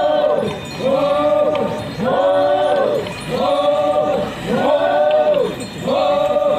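Naga folk dancers singing in unison, one short rising-and-falling phrase repeated about once a second with a brief breath between repeats.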